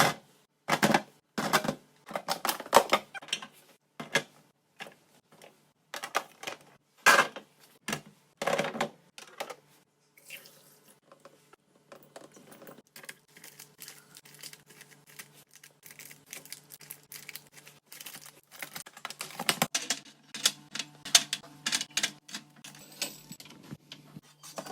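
Plastic containers and jars being set down and shifted on fridge shelves: bursts of clicking and clattering with short gaps, quieter for a while in the middle.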